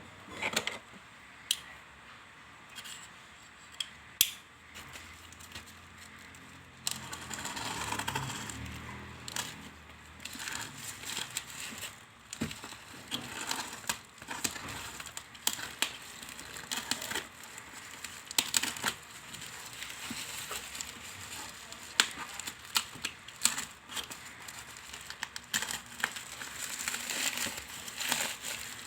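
A parcel being opened by hand: packaging crinkling, rustling and tearing, with scattered sharp clicks and taps. Sparse clicks at first, then denser rustling from about a quarter of the way in.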